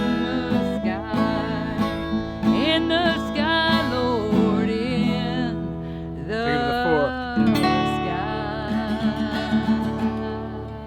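Country-style song with acoustic guitar accompaniment and a woman's singing voice with vibrato.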